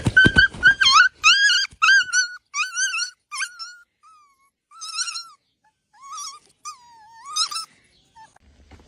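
Puppy whimpering: a quick run of short, wavering high-pitched whines, with a few knocks in the first second. After about four seconds the whines come singly, with pauses between them.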